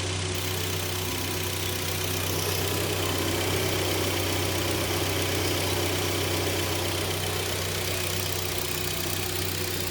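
2016 Hyundai Sonata's engine idling steadily, with a constant low hum.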